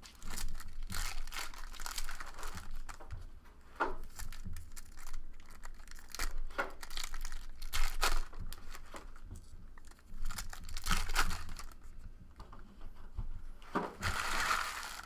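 Trading-card pack wrappers being torn open and crinkled while the cards are handled: irregular crackling and rustling, louder near the end.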